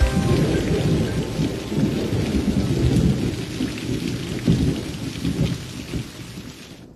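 Rain with rumbling thunder, fading away steadily and cutting off near the end.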